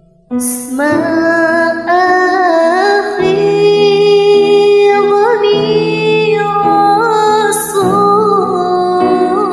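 A woman sings a slow Arabic-language song with melismatic, wavering ornaments over a soft instrumental backing track. She comes in about a third of a second in, after a near-silent start.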